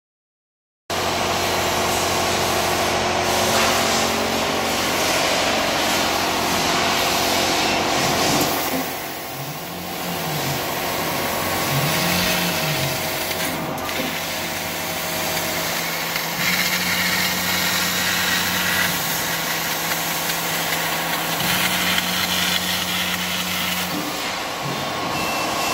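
AKJ1325-2H CO2 laser cutter cutting sheet metal: steady machine hiss and hum that starts about a second in, with motor tones that jump in pitch as the cutting head moves from cut to cut and twice rise and fall in arcs as it traces a circle.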